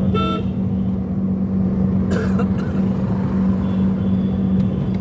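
Tata Indigo CS car driving at a steady pace, heard from inside the cabin: a continuous engine and road drone with a steady low hum.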